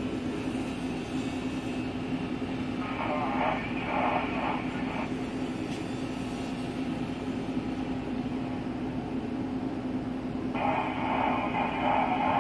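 Steady mechanical hum with a constant low tone inside a Comansa 290 tower crane's operator cab. Two short bursts of higher, narrower sound break in, about three seconds in and again near the end.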